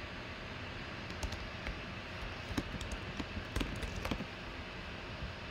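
Irregular computer keyboard and mouse clicks, typing a short label, over a steady background hiss.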